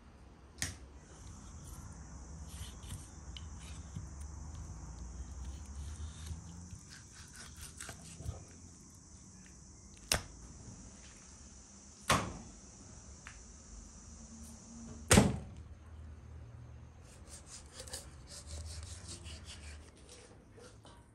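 Knife work on a wooden cutting board as raw chicken is cut up: soft rubbing and cutting with four sharp knocks on the board, the last the loudest. A steady high insect drone runs behind and stops a few seconds before the end.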